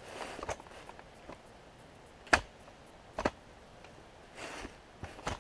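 Roll-a-Cot folding camp cot being set up: several sharp clicks and knocks as its legs and frame are fitted into place, the loudest a little over two seconds in and two more near the end, with brief rustling of the cot fabric in between.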